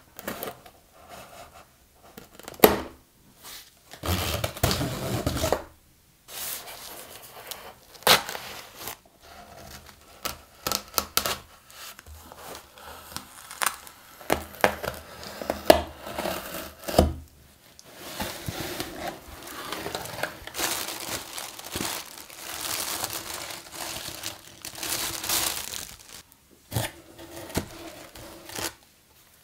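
A knife cutting through a plastic strapping band and slitting packing tape along a cardboard shipping box, with tearing, scraping and crinkling of tape and cardboard and scattered sharp snaps and clicks as the box is handled and opened.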